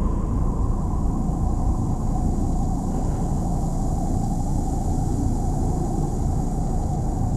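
Homemade imitation of a planet's electromagnetic 'space sound': several sounds layered into a steady, dense low rumble, with a droning mid-pitched tone that sinks slightly in pitch and a faint high hiss above it.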